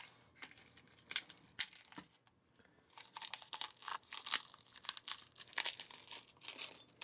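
Small candy pouch crinkling as it is shaken out over a glass dish, with damp, clumped popping candy tipping into the dish. A few separate sharp ticks come first, then a pause, then a rapid run of crinkles and crackles for the rest of the time.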